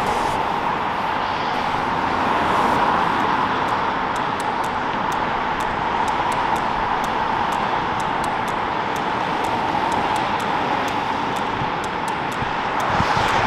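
Steady rush of highway traffic: tyre and engine noise from many cars blending together, with no single vehicle standing out.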